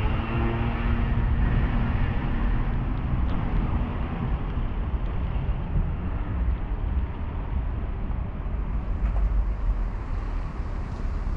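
City street traffic: a motor vehicle's engine hum fades over the first couple of seconds, over steady traffic noise.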